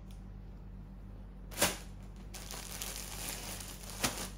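Clear plastic packaging crinkling and rustling as folded suits are handled, with one sharp crackle about a second and a half in and scattered crinkles after it. A steady low electrical hum runs underneath.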